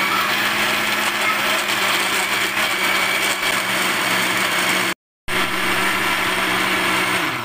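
Electric blender running steadily, its motor hum under the noise of banana, egg and oatmeal batter being blended. The sound breaks off for a moment about five seconds in, then runs on and stops near the end.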